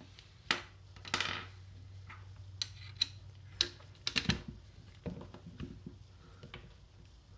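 Small metal rifle parts being handled: scattered sharp clicks and clinks as the pivot pin is pushed through the receivers and worked into place, with a louder clatter of several knocks about four seconds in.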